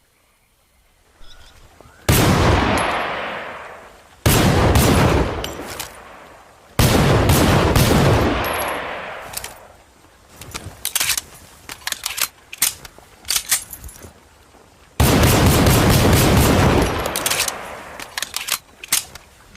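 Colt M1911 pistol firing four single shots, each followed by a long echoing tail: three about two seconds apart, then a fourth after a pause of about eight seconds. Between the later shots come bursts of short, light metallic clicks and clacks.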